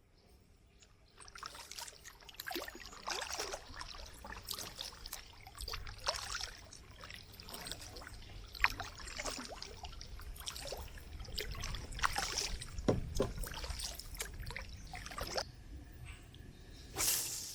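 Kayak paddle strokes: the blades dipping into the river again and again, with water splashing and trickling off them between strokes.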